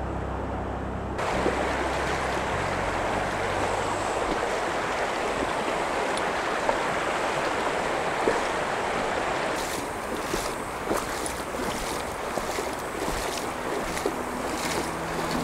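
Steady rushing of a shallow river current. From about ten seconds in, irregular splashes of booted feet wading through the shallow water join it.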